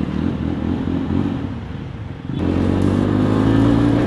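Yezdi Roadster's single-cylinder engine running through an open exhaust with the dB killers removed, under way. About two and a half seconds in it opens up and grows louder, the pitch climbing slightly.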